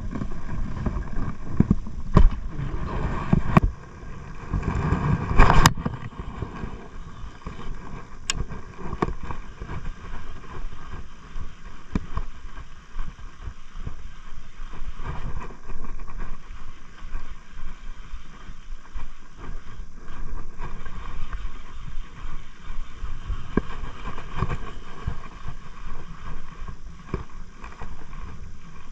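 Wind rumbling unevenly on an open-air microphone, with a few sharp knocks in the first several seconds.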